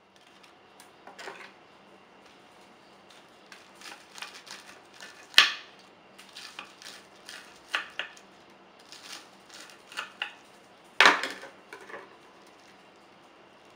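A knife cutting through crisp, panko-crusted fried chicken katsu on a wooden cutting board: a run of short, crackly crunches as the crust breaks, with two sharper, louder strikes about five and a half and eleven seconds in.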